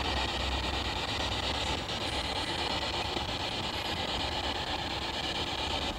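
SB7 spirit box sweeping through radio stations: a steady hiss of static over a low rumble, with no voices breaking through.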